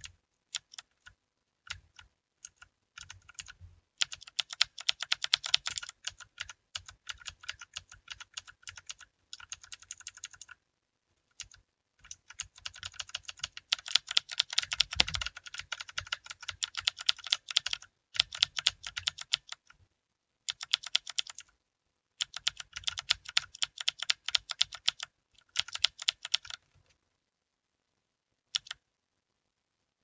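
Typing on a Redragon mechanical keyboard. A few scattered key presses give way to fast runs of keystrokes in bursts of a few seconds, separated by short pauses. A single key press comes near the end.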